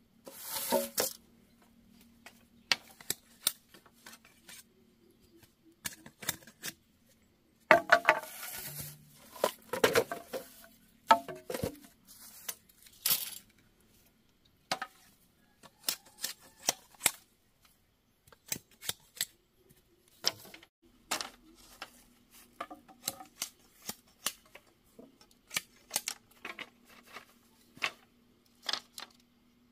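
Bamboo being chopped and worked with a blade: irregular sharp taps and knocks, denser and louder for a few seconds about a third of the way in.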